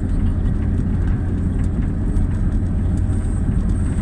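Engine running steadily with an even, low rumble.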